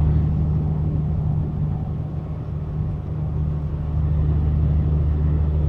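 Inside a semi-truck cab at highway speed: the diesel engine's steady low drone under road and tyre noise.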